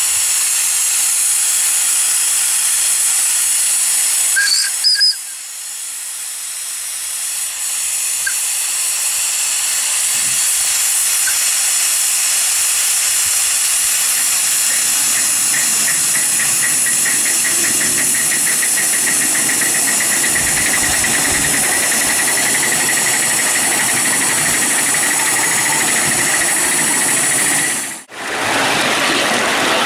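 Steady steam hiss from a coal-fired 5-inch gauge GWR 61XX live steam locomotive standing in steam. About five seconds in a brief high toot is heard, after which the hiss drops and gradually builds back up; in the second half a fast pulsing runs along with the hiss.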